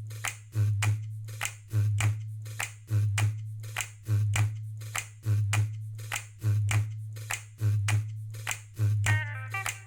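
Background music intro: finger snaps on the beat over a low pulsing bass note, with a bright picked melody coming in near the end.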